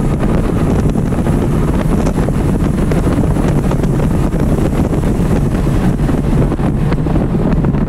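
Porsche Cayman R's 3.4-litre flat-six heard from inside the cabin under full throttle at high revs, with heavy wind and road noise. It runs on after an upshift into fourth, then the driver lifts off and brakes hard for the next corner near the end.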